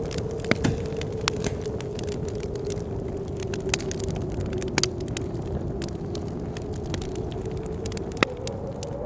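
A wood fire crackling, with irregular sharp pops, over blizzard wind that keeps up a low rumble and a steady howling tone. The howl rises a little in pitch near the end.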